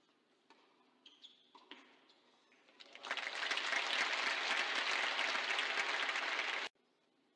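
A few tennis ball strikes in a rally, then a crowd applauding loudly for about four seconds, which cuts off suddenly.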